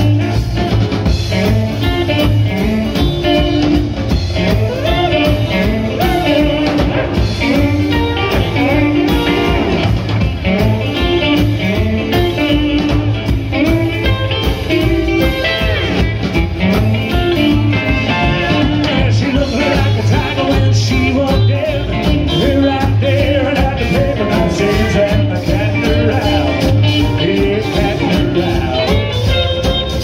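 Live rockabilly band playing a song with a steady beat: steel guitar, upright double bass, drums and electric guitars.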